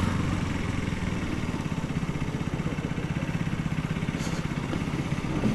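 KTM RC 200's single-cylinder engine idling with an even, fast pulsing beat.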